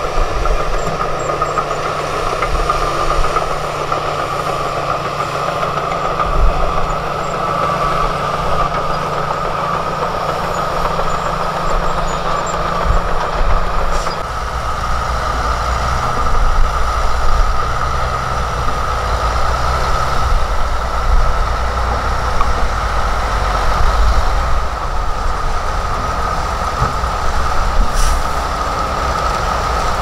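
Heavy diesel engines running: a dump truck with its tipper raised, dumping rock and dirt, then a LiuGong B160C crawler bulldozer standing by while a dump truck tips its load. The rumble shifts about halfway through, and a steady high hum runs under it all.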